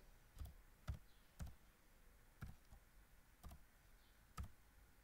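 Faint computer keyboard keystrokes: about eight separate clicks at uneven intervals as code is typed.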